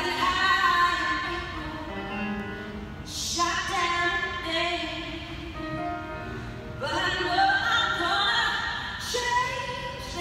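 Figure-skating program music with a singing voice, played over an ice rink's sound system. The phrases swell several times, loudest around three and a half and seven to nine seconds in.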